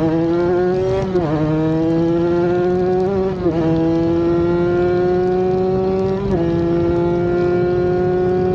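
Kawasaki Ninja RR 150's tuned two-stroke single-cylinder engine at full throttle, rising in pitch through each gear with three quick upshifts, each gear held longer than the last. A steady rush of wind runs underneath.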